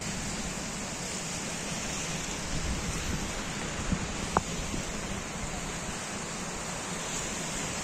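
Small waves breaking on a sea shore with wind rumbling on the microphone: a steady rushing noise.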